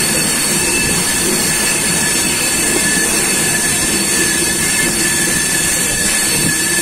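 Indian Railways express passenger train running at speed, heard from the open doorway of a coach: a steady, loud rush of wheels on rails and passing air, with a thin, steady high tone running through it.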